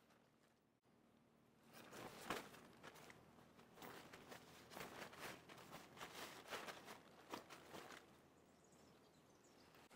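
Footsteps on the forest floor, a run of irregular steps starting about two seconds in and dying away near the end.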